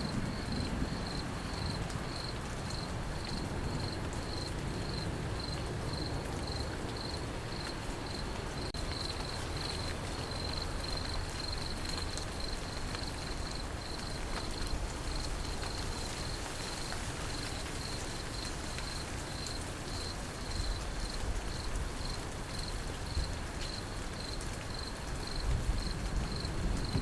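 Crickets chirping in a steady, evenly pulsed high trill over the even hiss of steady rain. A low rumble swells near the end.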